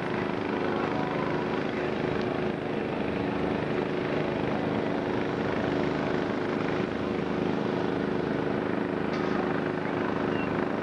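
A steady engine drone with a constant hum, under an even hiss.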